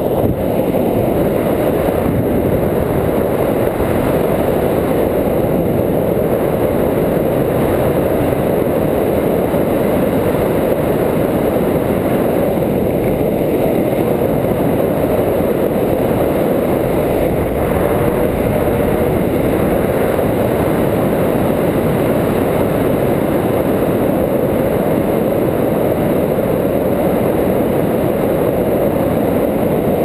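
Wind rushing over a camera microphone as a tandem paraglider flies. It is a steady, dense low rumble with no tone in it.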